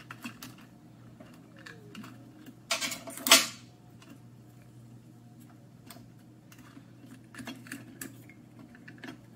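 Hard plastic parts and wiring of an electric water boiler's base clicking and rattling as they are handled and fitted together by hand, with a louder scraping clatter about three seconds in. A steady low hum runs underneath.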